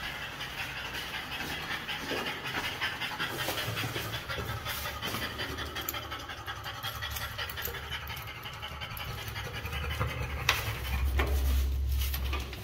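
French bulldog panting fast and noisily, the heavy breathing of a short-nosed breed. A knock and a low rumble come near the end.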